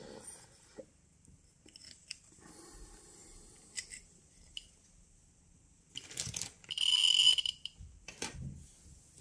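Handling noise of a metal Geiger–Müller tube being swapped in a tester's crocodile clips: scattered small clicks of the clips and metal rubbing, then a louder harsh scrape with a squeak in it about six to seven seconds in, followed by a couple of knocks.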